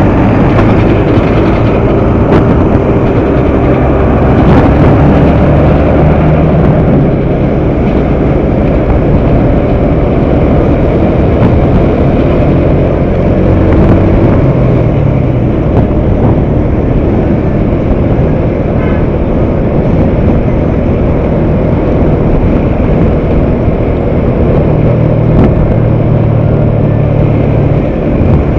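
Riding a motorcycle at road speed: wind rushing over the camera microphone, with the bike's engine running underneath and its note shifting as the rider speeds up.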